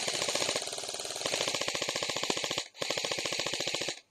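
Bravo RDW airsoft electric rifle with a Systema motor and a 7.4 V battery firing full-auto in a fast, even rattle: one long burst, a brief break, then a shorter burst that stops just before the end.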